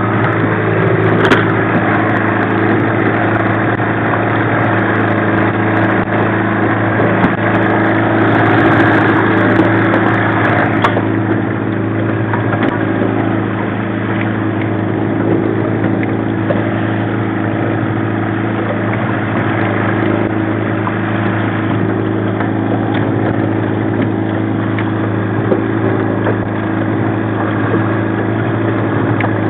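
1995 15 hp Mariner two-stroke outboard running steadily at slow trolling speed.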